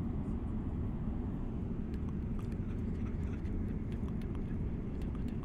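Airliner cabin noise: the steady low rumble of the engines and air flow, with faint scattered clicks over it.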